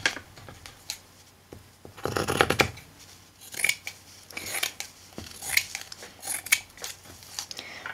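Scissors cutting through fabric: a brief rustle of the cloth being handled about two seconds in, then a run of short snips.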